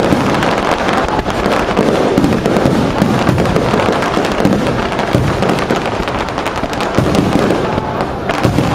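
Aerial fireworks going off in a dense barrage: a continuous rapid run of pops, bangs and crackles with no pause.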